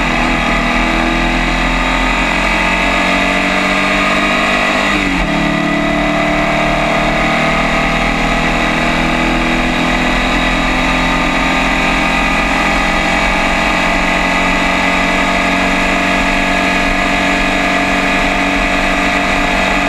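Formula First race car's air-cooled Volkswagen flat-four engine at full throttle, heard from the cockpit. The revs climb for about five seconds, drop sharply at an upshift, then hold high and steady down the straight.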